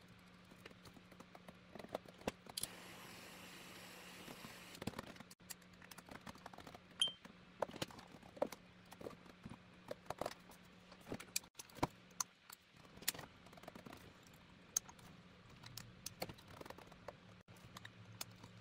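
Light, irregular metallic clicks and taps as a tenor saxophone key and small repair tools are handled, over a faint steady hum, with a soft hiss for a couple of seconds near the start.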